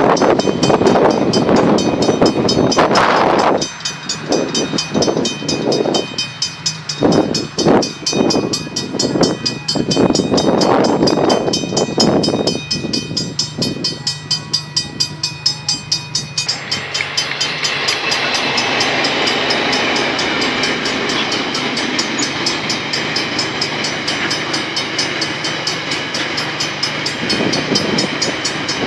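Mechanical level-crossing bells ringing with rapid strikes, with cars driving past at first. From about halfway through, a coal train's wagons run steadily across the crossing, the bells still ringing over the rolling noise.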